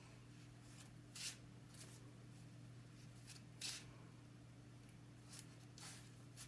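Faint, soft swishes of deck-building game cards being handled on a table, about five separate short strokes over a low steady hum.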